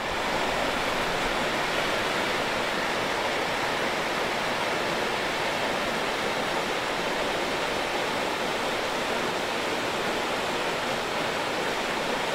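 Swift, silty river rushing steadily over stones and breaking white around a logjam, a constant roar of moving water.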